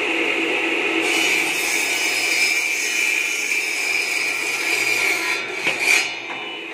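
A 12-inch circular saw blade on a mini bamboo-cutting machine, driven by a half-horsepower low-speed electric motor, sawing through bamboo with a steady rasping whine. A louder, rougher rasp comes near the end, then the sound drops and runs on more quietly.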